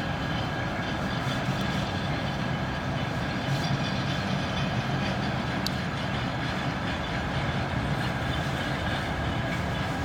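Freight train wagons rolling steadily past on the track, a continuous rumble of wheels on rail with a faint steady high whine over it.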